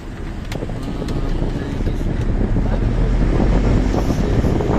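Wind buffeting the microphone while riding in a moving vehicle: a heavy, unpitched rumble with hiss that grows louder over the first few seconds.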